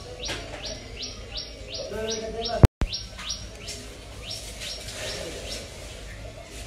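A bird calling over and over, a short high chirp that drops in pitch, repeated about three times a second. A sharp click and a split-second dropout cut in a little under three seconds in.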